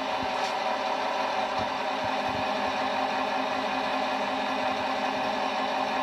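ESU LocSound decoder in an HO scale Rapido GP38-2 model locomotive playing its diesel engine sound, the 16-cylinder EMD 645 prime mover, running steadily through the model's small speaker.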